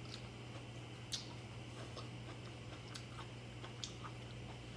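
A person biting and chewing kernels off a cob of boiled sweet corn, with a few short, sharp clicks from the bites about a second in, around three seconds in and just before the end, over a steady low hum.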